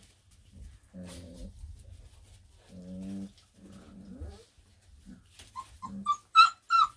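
Four-week-old Black and Tan Coonhound puppies play-wrestling: low growls about a second in and again around three seconds, then a run of short high-pitched yelps, loudest near the end.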